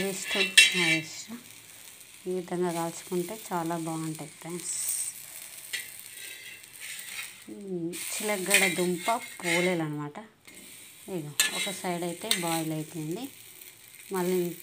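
A sweet flatbread sizzling on a hot iron tawa, a steady high hiss. Over it a voice sings in drawn-out, wavering notes, with pauses between phrases.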